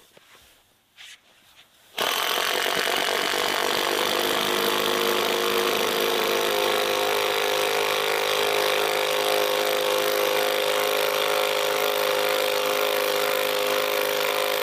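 Cordless impact driver hammering a long 5-inch lamination screw into a stack of three LVL beams. It starts suddenly about two seconds in and runs steadily without a break.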